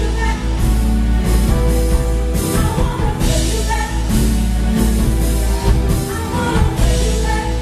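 A live band playing: drum kit, guitar and keyboard, with voices singing over them.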